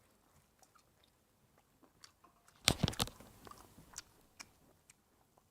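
Someone chewing and biting food close to the microphone: scattered soft mouth clicks, with a louder cluster of bites about three seconds in.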